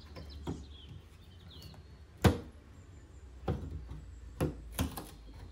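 Stanley claw hammer knocking against the wooden bottom and back of an old dresser, about six sharp knocks with the loudest a little after two seconds in, as the damaged backing is worked loose to be pried off.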